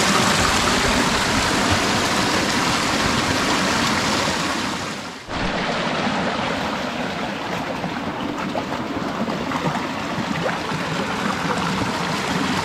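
Creek water running, a steady rushing sound that dips sharply about five seconds in and then carries on slightly softer.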